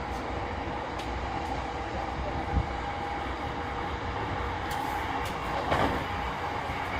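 E233 series 3000 electric train running at steady speed, heard from inside the car: a continuous rumble of wheels on rail with a steady hum. A thump comes about two and a half seconds in and a sharper knock near six seconds.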